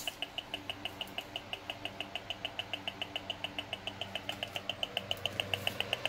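Gigahertz Solutions NFA 1000 magnetic-field meter's built-in speaker sounding its audio signal, a fast even series of short chirps about eight a second, quickening slightly near the end; the signal follows the magnetic field it is measuring from an electric fan's motor. A steady low hum runs underneath.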